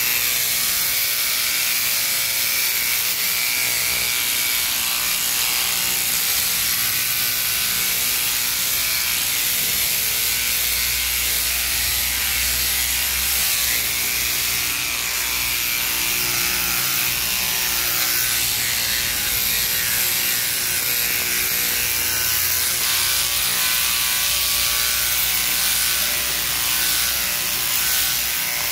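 Mechanical sheep-shearing handpiece, driven by a jointed drive shaft, running steadily without a break as its cutter works through the fleece.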